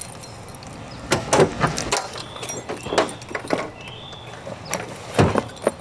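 Car trunk being unlocked and lifted open, with keys jangling and the latch and lid clicking and knocking; a heavier thump about five seconds in.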